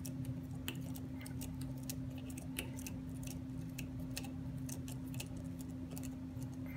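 Light, irregular metallic clicks and ticks as a small hand socket is turned on an M3 bolt, unscrewing the nut of a home-made bolt-and-washer bearing press from a drone motor stator.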